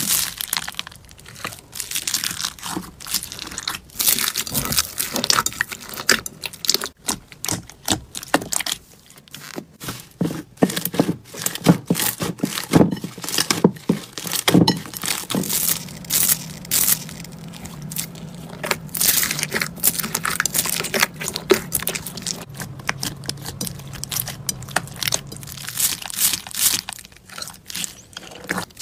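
Slime being squeezed and worked by hand, giving a dense run of crinkly, crackling pops and crunches.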